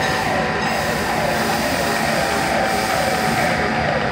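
Machine-shop machinery running steadily and loudly, with a falling whine that repeats about every three-quarters of a second.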